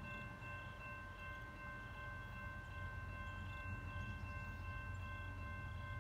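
Railroad grade-crossing warning bell ringing steadily while the crossing gates lower, cutting off near the end, over a low rumble.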